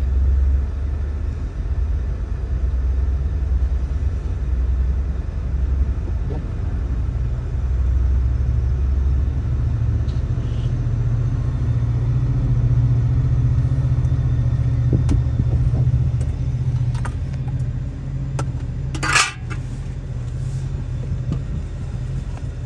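Low, steady rumble of a Sounder commuter train's diesel locomotive, heard from inside a car; the drone steps up in pitch about halfway through. A brief sharp rattle comes near the end.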